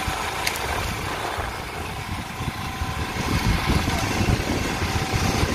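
Fishing boat's engine running steadily, its sound mostly low-pitched, swelling slightly about halfway through.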